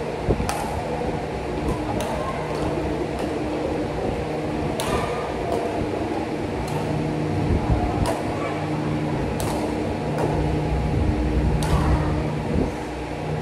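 A steady mechanical hum with a few low tones held throughout. Sharp clicks come at irregular intervals, about every one to two seconds.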